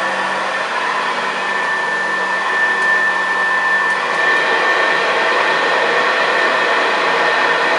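1971 Hoover Senior 6525C upright vacuum cleaner running on carpet: a steady motor and fan noise with a thin high whistle. Its low hum shifts slightly lower about four seconds in.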